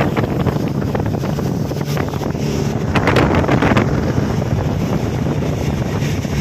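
Speedboat's Yamaha 100 hp outboard motor running at speed with a steady drone, under heavy wind buffeting on the microphone and the rush of the wake.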